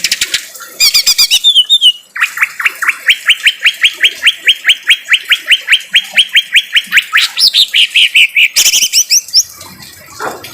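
Green leafbird (cucak ijo) singing in its harsh-voiced style: a long trill of rapid, evenly repeated sweeping notes, about five a second, with short bursts of high chattering notes before and after it.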